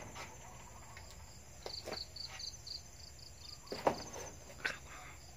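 A cricket chirping: a quick run of about ten short, high, evenly spaced notes, about five a second, lasting about two seconds through the middle. A few soft knocks and rustles fall around it; the loudest comes just before the four-second mark.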